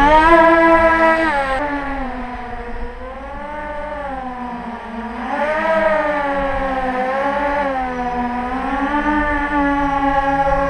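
Brushless motors and propellers of an X8 coaxial octocopter whining in flight, the pitch rising and falling every couple of seconds as the throttle changes. The whine turns duller and fainter about two seconds in, then comes back up about five seconds in.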